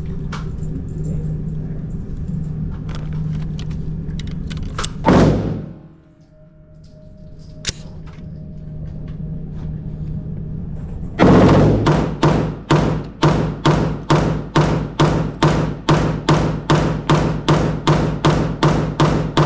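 Electronic music: a steady opening section ends in a sweeping whoosh, then a rising build-up leads into a drop about eleven seconds in, with a heavy, evenly spaced beat of about two hits a second.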